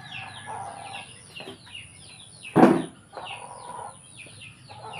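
Chickens: rapid high, falling peeping calls, several a second, with lower clucking in between. One loud short call or knock comes about two and a half seconds in.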